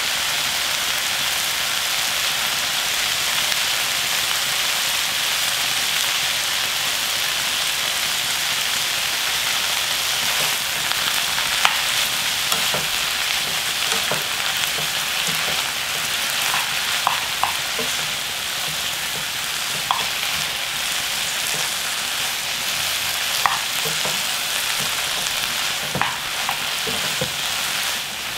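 Sweet potato stems and sliced onion sizzling steadily as they stir-fry in a nonstick frying pan. From about ten seconds in, a wooden spatula stirring them gives scattered sharp taps against the pan.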